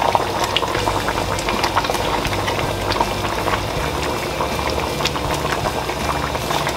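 Okra sauce simmering in a steel pot on the stove: steady bubbling with many small pops, over a low steady hum.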